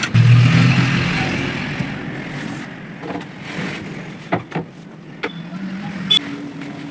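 Power screwdriver whirring as it backs out the screws of a CRT TV's plastic back cover, the whir fading over about two seconds, then a string of sharp clicks and knocks and a shorter, fainter whir near the end.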